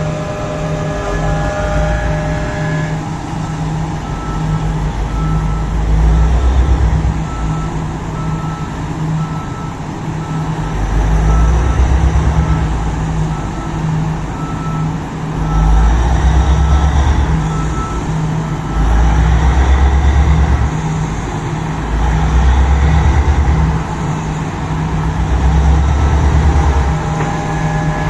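Komatsu PC4000 mining excavator working hard in poorly blasted rock, its engine swelling and easing in repeated surges as it digs. A beeping alarm sounds about once a second throughout.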